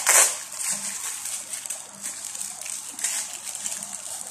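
Plastic film crinkling and rustling as it is peeled off raw burger patties, sharpest at the start and again about three seconds in, over a steady high hiss.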